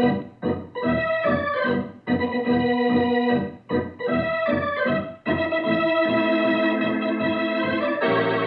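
Organ music playing a short bridge theme: a few brief phrases with short breaks, then a long held chord from about halfway through.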